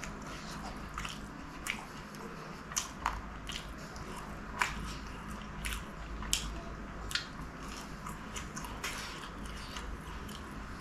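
Close-miked chewing of a fried chicken samosa: irregular crisp crunches and mouth clicks, about a dozen over ten seconds, over a low steady hum.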